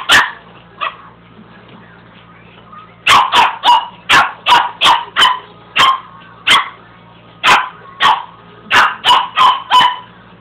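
Small dog barking at a carpet sweeper in short, sharp barks: one at the start and a fainter one just after, then after a pause a rapid run of about fifteen barks.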